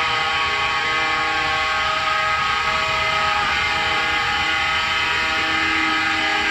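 Rotating brushes of a Christ Varius rollover car wash making a steady, loud drone of several held tones at once, like a horn.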